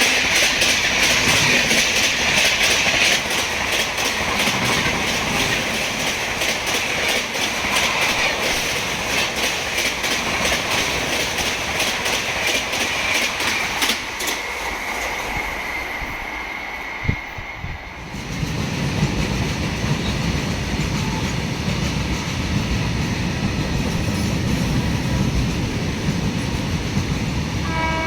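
Express train running through at speed, its wheels clattering rapidly over the rail joints. About halfway through the clatter fades away. A steady low rumble then builds, as of the next train approaching.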